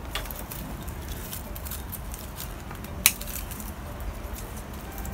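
Pruning shears snipping twigs and leaves on a beech bonsai: a few short, sharp clicks, the loudest about three seconds in, over a low steady rumble.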